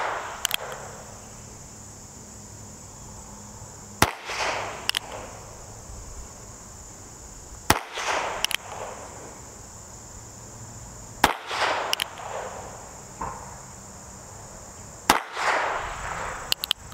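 Four shots from a North American Arms 22S mini revolver firing CCI CB .22 Short cartridges, one about every three and a half to four seconds. Each is a sharp, light pop with a short ringing tail. A steady high insect drone runs underneath.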